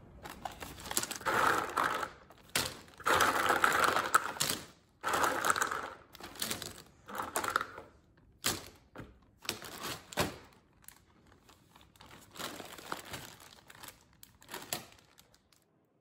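Clear plastic bag crinkling in irregular bursts as handfuls of capped plastic lip balm tubes are dropped into it, with the tubes clicking against each other.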